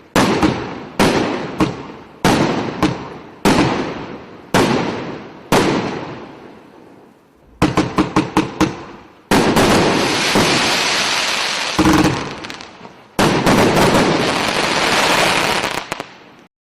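Consumer firework battery (cake) 'Ptitsa-Troika' firing. Single shots burst about once a second, each trailing off. A quick string of bangs comes about eight seconds in, then long, dense, unbroken bursts of noise in the finale that stop abruptly.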